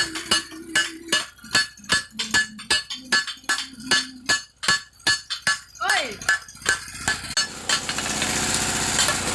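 Blacksmith's hammer striking metal on an anvil in a steady rhythm, about two to three ringing blows a second. The hammering stops about seven seconds in and a steady machine noise takes over.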